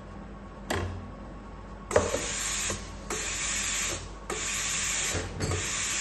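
Self-cleaning milk-frothing wand of a commercial coffee machine running its cleaning purge: a click, then from about two seconds in, repeated hissing bursts, each about a second long with short breaks between.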